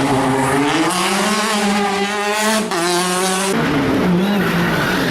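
Rally car engine heard from inside the car at full throttle. The revs climb, dip briefly for a gear change about two and a half seconds in, climb again, then fall sharply about three and a half seconds in as the driver lifts off.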